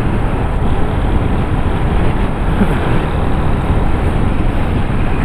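Motorcycle under way at cruising speed: a steady, loud rush of wind buffeting over the microphone, with the bike's engine and tyre noise underneath.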